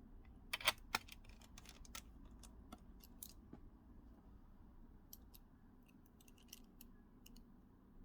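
Light, scattered clicks and ticks of a small screwdriver and screws being worked into a laptop's plastic case. The sharpest clicks come about a second in.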